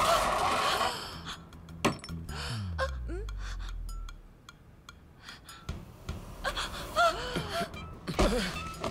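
A woman gasping and sobbing, with short bending vocal cries near the end. About two seconds in there is a sharp click, followed by a deep tone that falls steadily in pitch.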